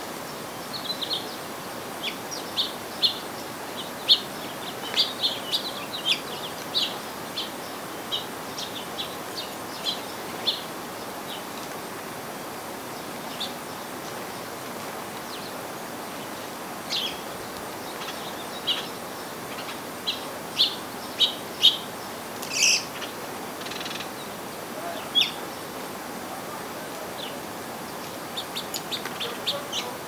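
Sparrows and finches chirping: short, high chirps in scattered clusters, with a lull of several seconds midway and a quick run of chirps near the end. A steady hiss runs underneath.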